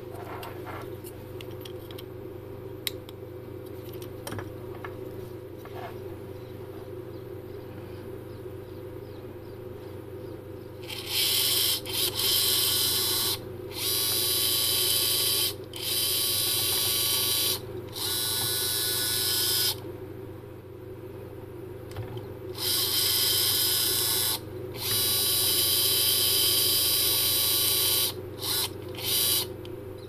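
Geared motor of a high-torque 360-degree servo (ASME-MR series) running in repeated bursts, a high whine with gear noise, about seven runs of one to three seconds separated by short pauses, ending with two short blips. For the first third there is only a steady low hum before the motor starts.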